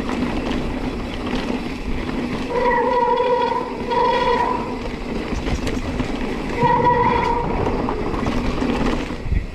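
Giant Reign full-suspension mountain bike rolling fast down a dirt forest trail: tyre, chain and suspension rattle with wind on the camera, and a steady buzzing tone in a few one-second stretches, the rear freehub ratchet buzzing while the rider coasts.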